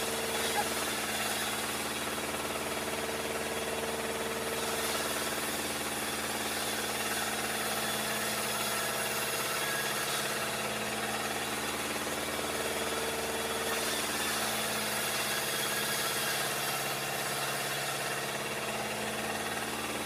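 Log band sawmill running steadily, its machinery making a constant hum that does not let up or change.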